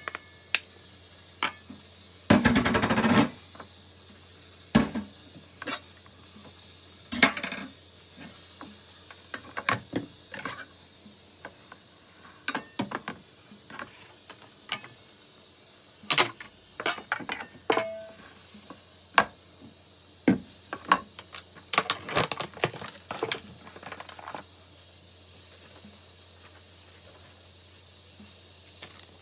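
Kitchen utensils handled against a stainless steel mixing bowl and a plastic cutting board: scattered sharp clicks, taps and knocks from a knife and a wooden spoon, with one longer, louder scrape about two seconds in.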